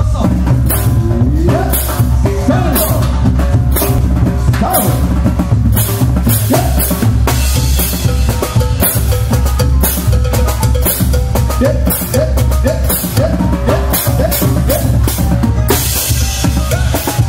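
Tecnobanda music: a drum kit keeps a steady beat of bass drum and snare hits over a continuous heavy bass line and pitched instrument parts.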